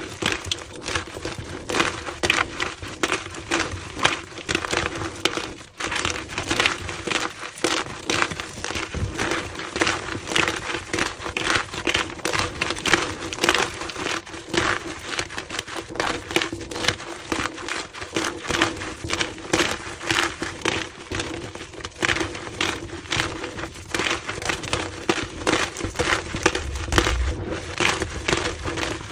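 Blocks of gym chalk being crushed and crumbled: a dense, continuous run of crunchy crackles, sped up to double speed.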